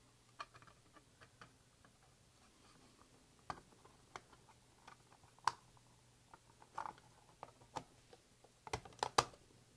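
Plastic parts of an HO-scale boxcar kit clicking as the underframe is pressed into the shell, its tabs snapping into the indents inside the body. Scattered light clicks, with a quick run of sharper clicks near the end.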